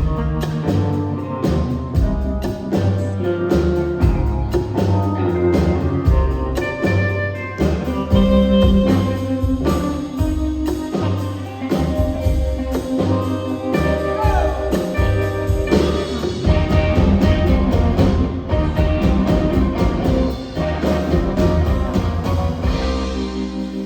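Live band playing an instrumental passage of a country-rock song, with drums keeping a steady beat under bass and chords.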